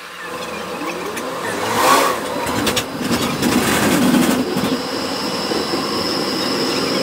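Electric tram heard from inside the passenger cabin, pulling away: its traction motor whine rises in pitch over the first two seconds over the rumble and rattle of the car. From about four and a half seconds a steady high squeal sets in.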